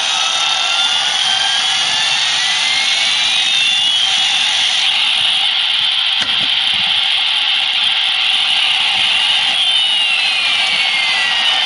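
Helicopter-shaped alarm clock's electronic alarm sounding through its small speaker. It is a loud, steady rushing rotor-noise effect with siren-like tones slowly rising and falling and crossing over each other. One sharp click comes about six seconds in.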